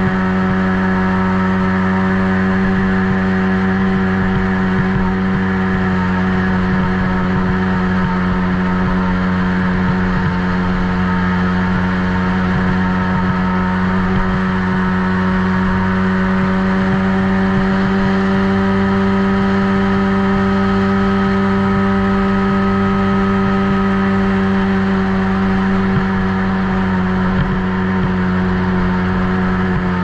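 Youth ATV engine running at a steady, held speed while riding, heard close up from on board; its pitch barely changes throughout.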